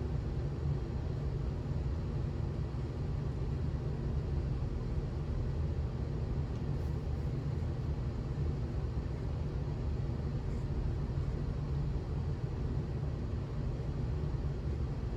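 Steady low rumble and air noise as a Banvil Orange Line industrial ceiling fan coasts down after being switched off.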